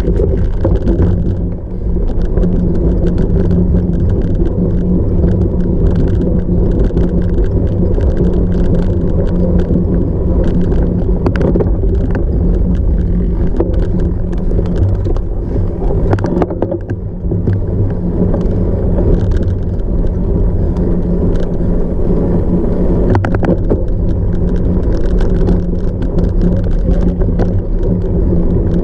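Cyclocross bike ridden hard over rough off-road ground: a loud, steady rumble of tyres and wind, with occasional sharp knocks and rattles.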